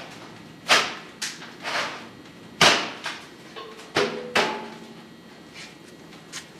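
A series of about six sharp knocks and scrapes from metal parts of a homemade sawdust furnace being handled, the loudest about two and a half seconds in and one with a short metallic ring about four seconds in; it goes quiet for the last two seconds.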